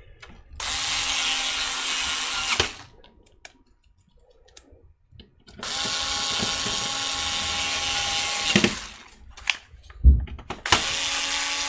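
Electric screwdriver running in three spells of about two to three seconds each, driving the screws of a small PC case, with a few light clicks and knocks of handling between the spells.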